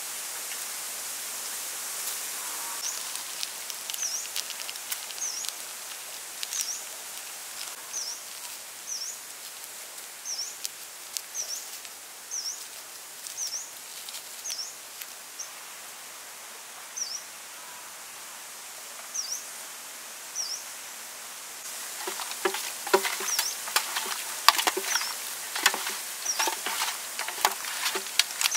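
Fine seasoning powder pattering as a steady hiss onto raw water snakes in a steel tray, with a high chirp repeating about once a second over it. About three-quarters of the way through, this gives way to louder wet squelching and slapping as the seasoned snakes are mixed by hand.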